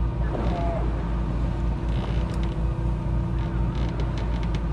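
A fishing boat's engine running with a steady low hum, with a few sharp clicks in the second half.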